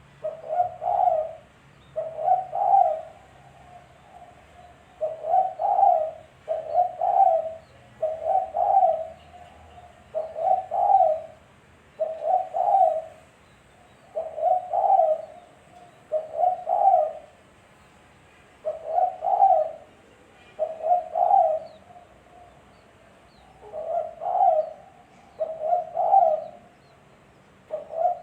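Spotted dove (tekukur) cooing over and over, each phrase about a second long and repeated roughly every two seconds.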